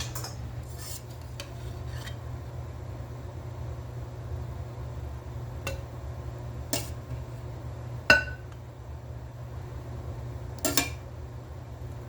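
A metal utensil clinking and knocking against a dish of cookware while sauce is mixed into meat: about seven scattered clinks, the loudest a ringing clink about eight seconds in, over a steady low hum.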